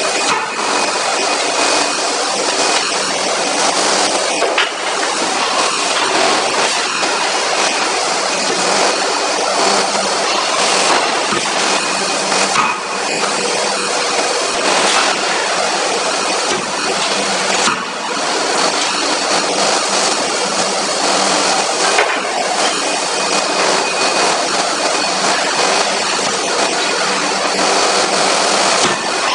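Steady, loud hissing machinery noise from a forging hammer and forge shop, with a few faint brief knocks.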